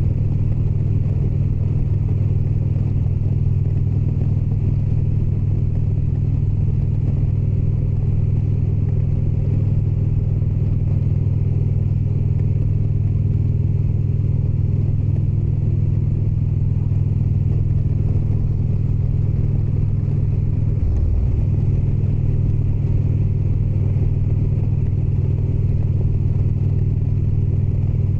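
Indian Springfield's V-twin engine running at a steady cruise under way, its low even note briefly dipping and recovering about three-quarters of the way through, as with a throttle change or gear shift.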